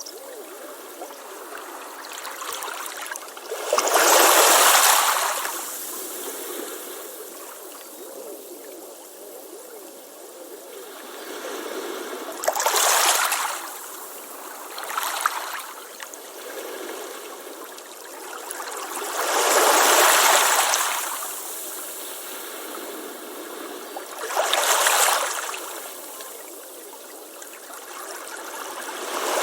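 Ocean waves breaking on a beach: a steady wash of surf with five louder crashes, the biggest about four seconds in and around twenty seconds in, each swelling and fading over a second or two.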